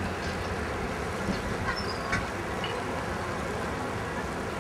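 Steady outdoor city ambience: a low, even hum of distant traffic and people in an open square, with a few faint clicks a second or two in.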